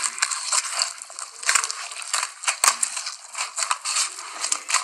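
Dense crunching and crackling as an instant-noodle cup is crushed and torn apart, with many sharp crackles close together.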